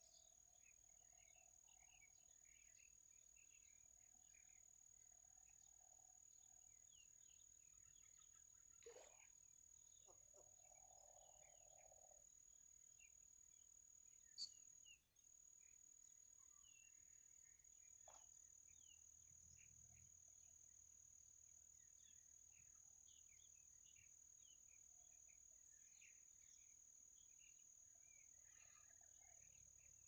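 Very faint natural ambience: a steady high-pitched insect trill that breaks off briefly about halfway, with scattered faint chirps and a few soft ticks.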